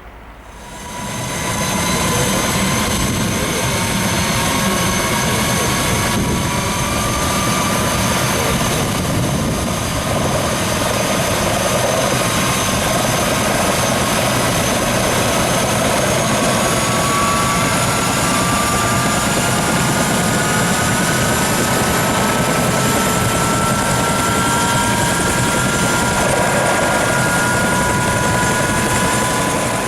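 Turbine helicopter running loud and close, its engine whine and rotor noise swelling suddenly about a second in and then holding steady. Several whining tones rise slowly in pitch over the second half.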